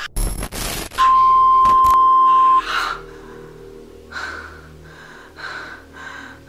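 Film sound design: crackling glitch noise, then a loud steady beep-like tone for about a second and a half, followed by a man's gasping breaths, about one every 0.7 seconds, over a low music drone.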